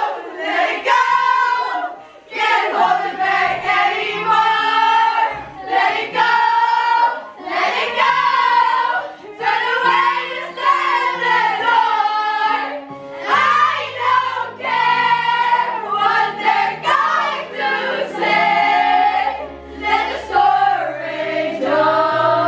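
A group of girls singing together, with the steady low notes of backing music underneath.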